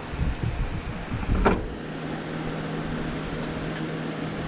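Steady low mechanical hum under close handling noise as hands and small pliers work ratline thread on a model ship's rigging, with one sharp click about a second and a half in.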